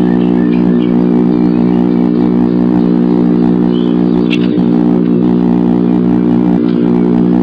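Steady electrical hum in the nest-box camera's audio feed, many evenly spaced tones that stay level throughout. A single brief high-pitched sound cuts through it about four and a half seconds in.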